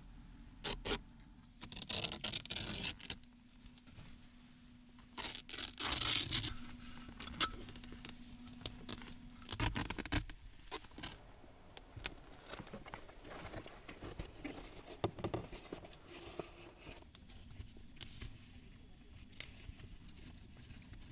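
Several loud tearing, rasping bursts, each about a second long, with quieter rustling and small knocks between them, as fabric and fastenings are handled around a window.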